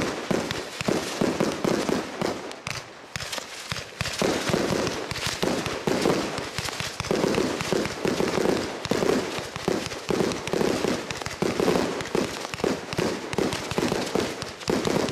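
A 100-shot fireworks cake firing in rapid succession: silver whirlpool-tail comets launching and breaking into red and silver glitter peonies, a dense stream of launch thumps and bursts. It eases briefly about three seconds in, then picks up again.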